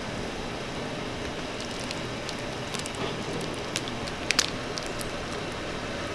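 Large pan of tteokbokki in thick red chili sauce simmering: a steady bubbling hiss with scattered sharp pops and clicks, a couple of louder ones a little past the middle.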